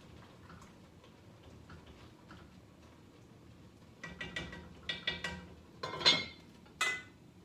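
Metal cookware clattering: a pot and its lid knock together in a quick run of ringing clinks and clanks, the loudest about six seconds in. Before that there are only faint light ticks.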